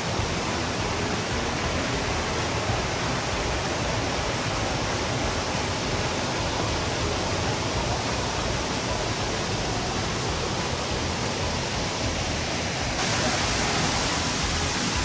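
Stream water rushing over a small rocky cascade: a steady rushing hiss that turns brighter about thirteen seconds in.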